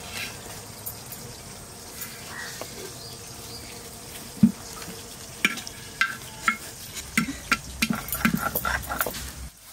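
A small child knocking and scraping a spatula on a black metal pan. One sharp knock comes about four and a half seconds in, then a quick string of light taps and clicks.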